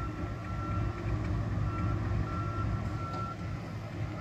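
Diesel switching locomotive running and moving slowly, a steady low engine rumble, with a high thin squeal that comes and goes several times.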